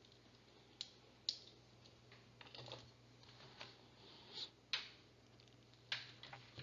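Faint computer keyboard clicks and taps, several short irregular strokes over a low steady hum.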